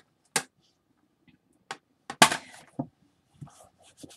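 A few sharp knocks and clicks of things being handled and set down, about five in all, the loudest a little past the middle with a short ring after it.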